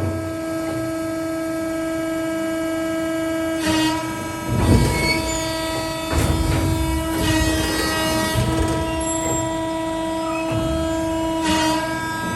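Bystronic ByShear hydraulic guillotine shear running: a steady hum from its drive, broken several times by heavy clanks as the blade cuts and the plate drops.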